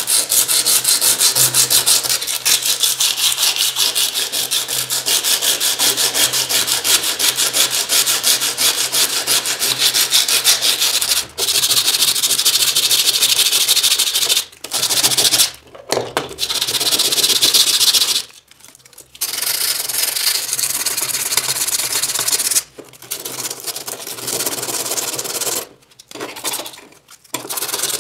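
Sandpaper rubbed quickly back and forth over the metal of an antique areca nut cutter, taking off rust: a fast, even rasping, broken by several short pauses.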